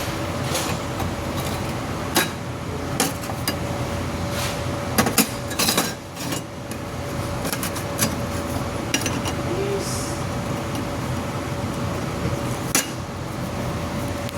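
Light metal clinks and taps, with a cluster about five seconds in, over a steady hum and hiss of workshop machinery.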